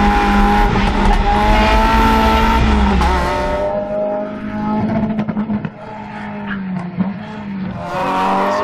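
Mazda MX-5 rally car's four-cylinder engine at high revs, its pitch rising and falling through the gears. It drops quieter about three and a half seconds in, then grows loud again near the end as the car comes close, with a rush of tyre and road noise.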